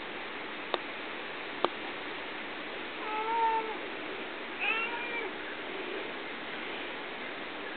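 Tabby cat meowing twice, two drawn-out calls about three and four and a half seconds in, over a steady hiss. Two sharp clicks come earlier, about a second apart.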